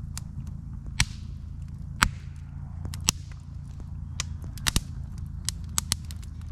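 Split-log wood campfire crackling, with sharp irregular pops about every half-second to second, the loudest about two seconds in, over a steady low rumble.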